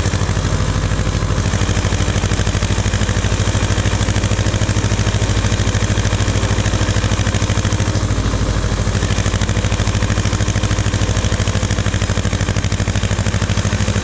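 Ursus C-330 tractor's two-cylinder diesel engine running steadily with an even, fast beat.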